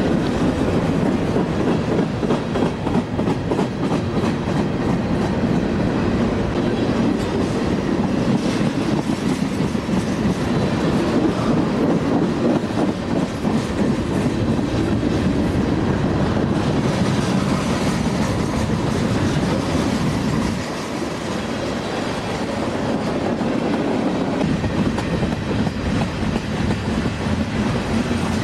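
Freight train of covered hopper cars rolling past close by: a steady rumble of steel wheels on rail with a stream of clicks from the wheels over the rail joints, easing slightly for a few seconds past the middle.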